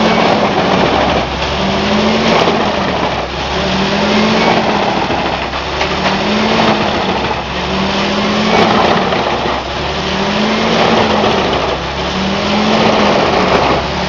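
Wood chipper machine running, its engine hum and chipping noise swelling and easing in a regular cycle about every two seconds.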